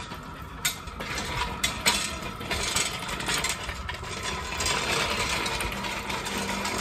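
Engine stand loaded with a Dodge M37 cast-iron engine block being rolled on its casters across concrete, rattling, with several sharp clanks in the first couple of seconds. Cicadas drone steadily behind.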